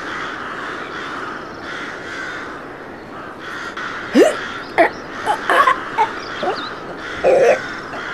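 Crows cawing: a run of short, loud, harsh caws from about four seconds in, over steady background noise.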